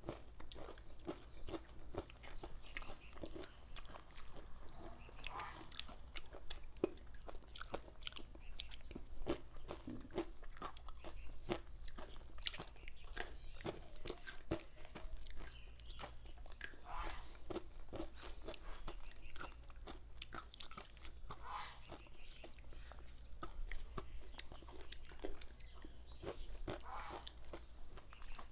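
Close-up crunchy chewing of yogurt mixed with cereal grains and dried fruit, with many sharp clicks and scrapes of plastic spoons stirring in plastic yogurt cups.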